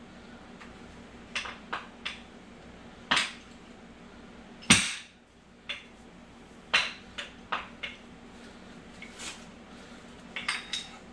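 Irregular hammer blows and metallic clinks as a tight-fitting gear is driven off a Honda J-series transmission shaft. The loudest strike falls about halfway through.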